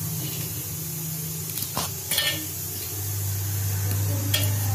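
Biscuits being snapped by hand and dropped into a stainless-steel mixer-grinder jar: a few sharp clicks and crackles about two seconds in and again near the end, over a steady low hum.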